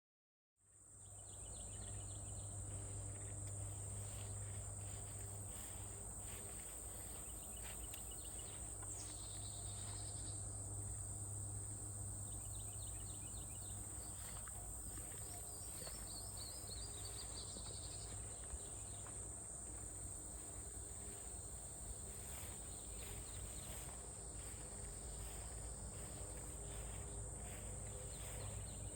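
Faint outdoor ambience of insects, like crickets, in a steady high-pitched drone, with a low hum beneath and a few brief chirps about nine seconds in and again around fifteen seconds. It rises out of silence in the first second.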